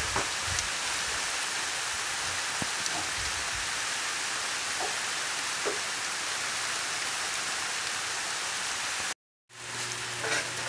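Steady rain falling on trees and ground, an even hiss with scattered drop ticks. The sound cuts out for a moment about nine seconds in, then the rain returns over a low steady hum.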